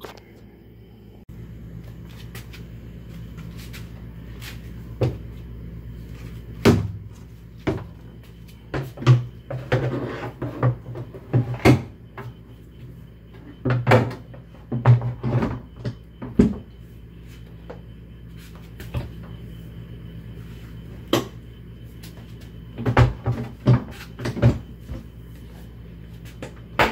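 Engine cowling of a 1995 Mercury 115 two-stroke outboard being fitted and seated, giving scattered clunks and sharp knocks in small clusters over a steady low hum.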